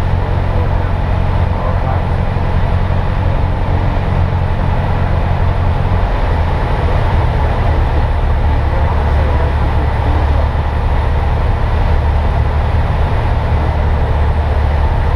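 Piston engine and propeller of a single-engine light airplane droning loudly in the cabin as it comes in to land. About six seconds in the engine note drops lower as power comes back.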